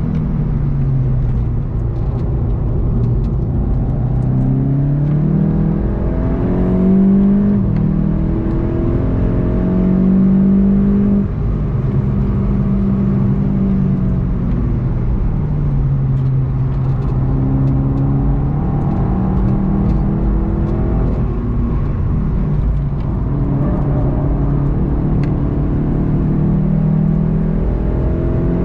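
In-cabin sound of a VW Golf 7 GTI TCR's turbocharged 2.0-litre four-cylinder engine pulling hard through the gears. The revs climb, fall back at each upshift and drop again for braking, over a constant tyre and road rumble.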